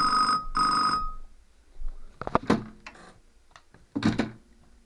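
Telecom Australia gold payphone's ringer sounding two short rings close together for an incoming call. A few clunks and rattles follow about two seconds in and again near four seconds.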